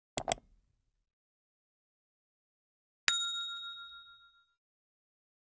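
Two quick mouse-click sound effects, then about three seconds in a single bright bell ding that rings out and fades over about a second and a half: the click-and-notification-bell effects of a subscribe-button animation.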